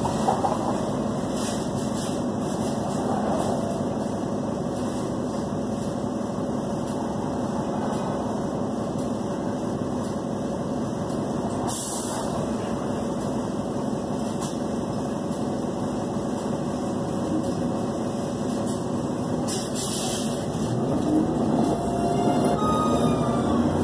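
Inside a city transit bus idling at a stop: a steady engine and ventilation hum, with two brief hisses of air, one about halfway and one near the end. In the last few seconds the engine rises in pitch and gets louder as the bus pulls away.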